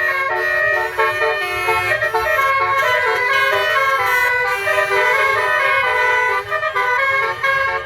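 Basuri (telolet) multi-tone horns on a vehicle playing a fast melody, loud horn notes switching pitch several times a second.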